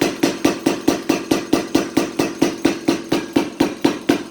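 Tire hammer, a blacksmith's motor-driven power hammer, striking steadily and hard at about five blows a second, each blow ringing briefly.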